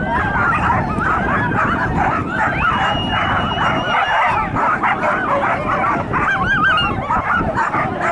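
Several dogs whining and yelping at once in a dense, continuous chorus of wavering high cries, with a long, steady high whistle about two and a half seconds in that lasts nearly two seconds.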